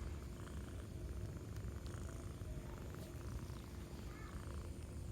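Domestic village cat (kucing kampung) purring steadily up close.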